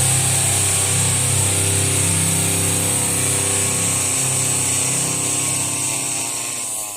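A power tool running steadily at speed with a pitched hum and a high whine, then winding down near the end.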